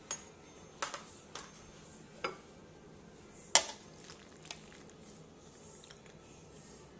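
Utensils clinking and knocking against dishes: a handful of short, sharp clinks, the loudest one about halfway through.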